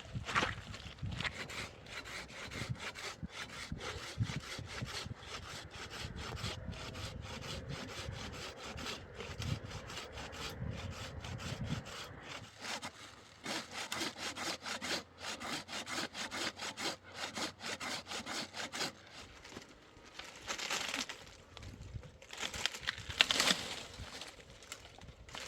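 Saw cutting through wood in quick, steady back-and-forth strokes, about three a second, with a few pauses and separate bursts of strokes near the end.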